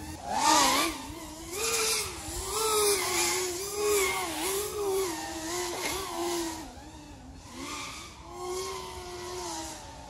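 FPV racing quadcopter's electric motors and propellers whining, the pitch swinging up and down as the throttle is punched and eased through turns, with a swell of propeller noise every second or so. It is flown at an 80% throttle cap.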